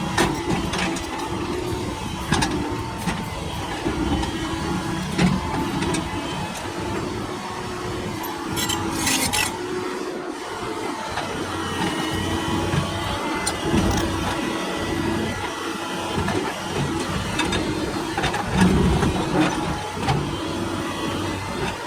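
Doosan hydraulic excavator's diesel engine running steadily under work, with frequent sharp knocks from the machine at work on rock and a brief hiss about nine seconds in.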